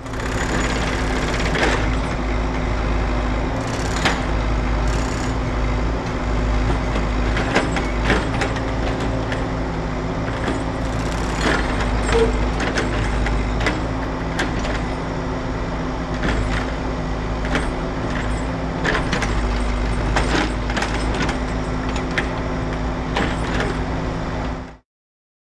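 Road construction machinery running steadily with a deep rumble and a held engine tone, with frequent clanks and knocks over it. It cuts off suddenly near the end.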